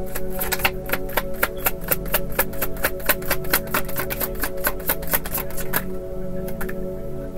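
A tarot deck being shuffled by hand: a fast run of card clicks, about six a second, that stops about six seconds in. Soft background music with sustained tones plays underneath.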